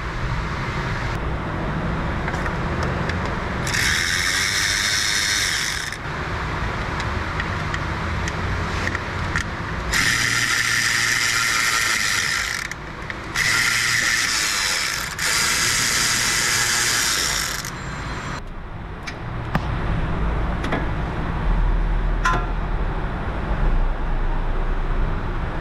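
Cordless electric ratchet running in four bursts of about two seconds each, spinning off the small nuts that hold the air duct to the back of the alternator, with scattered metallic clicks between runs. A low, steady rumble comes in during the last few seconds.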